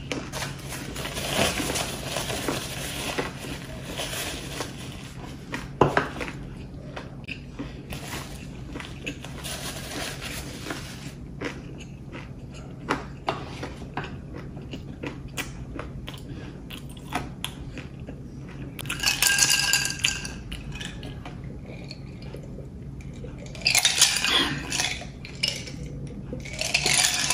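Close-up eating sounds: wet chewing of squid with many small mouth clicks, and utensils and dishes clinking, with a sharp knock about six seconds in and a ringing clatter later. Near the end comes a louder stretch of drinking from a glass.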